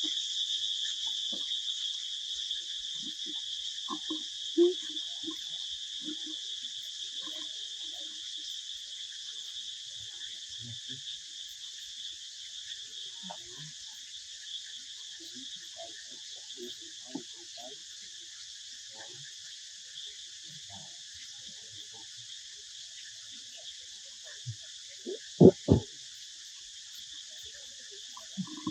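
Steady high-pitched chorus of insects, easing slightly over time, with scattered faint short low sounds. Two loud knocks come close together near the end.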